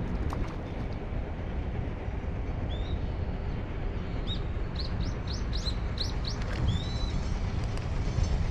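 A small bird calls a quick run of short, high chirps in the middle, ending on a longer arched note, over the steady rumble of strong wind on the microphone.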